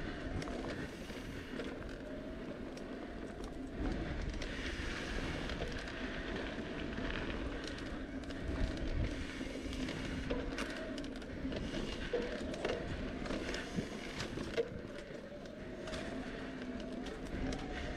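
Bicycle riding along a sandy dirt trail: steady tyre and ride noise, with scattered sharp rattles and knocks as the bike goes over bumps.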